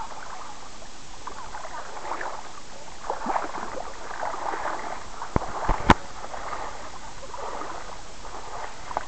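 Shallow river water lapping and gurgling right at the microphone, with small bubbly plinks. A few sharp knocks come a little past halfway.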